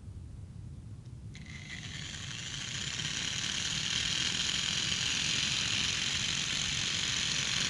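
A motor-driven wave machine switched on about a second in, shaking a cord into a standing wave. It gives a steady mechanical whir that builds over a couple of seconds, then runs on evenly.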